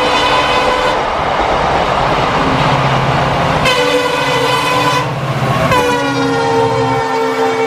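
Indian Railways diesel locomotive horn sounding in blasts over the steady noise of a train running past: one tails off in the first second, a short blast comes about three and a half seconds in, and another starts about six seconds in and holds.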